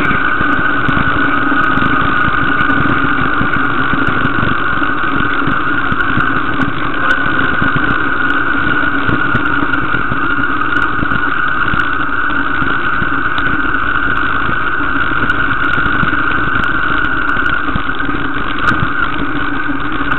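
Steady, unbroken drone of engine and road noise from a moving vehicle, heard from on board.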